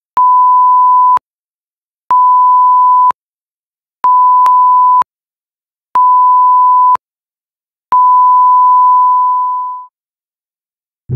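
Film countdown leader beeps: a pure, steady high-pitched tone sounding four times, each about a second long and two seconds apart, then a fifth, longer tone that fades away.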